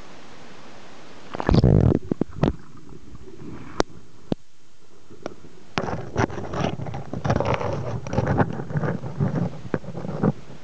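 Camera plunging into a lake with a loud low splash about a second and a half in, followed by a few sharp clicks. From about six seconds in comes continuous muffled underwater gurgling and knocking as water moves around the submerged camera.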